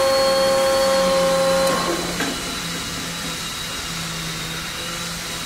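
Accurpress 71008 hydraulic press brake running, its pump motor giving a steady hum with a high whine. A little under two seconds in, one tone drops out and a click follows, and the hum carries on a little quieter.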